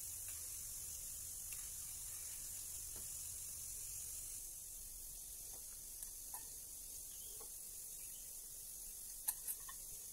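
Steady high-pitched hiss with a few faint clicks around the middle and a sharper pair of taps close together near the end.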